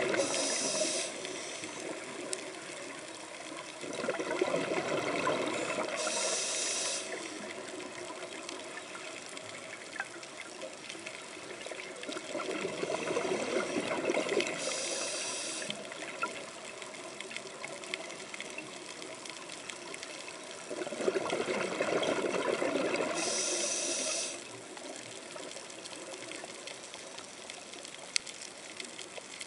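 A scuba diver breathing through a regulator underwater: a rush of exhaled bubbles and a sharp regulator hiss, repeating in slow breath cycles about every eight to nine seconds.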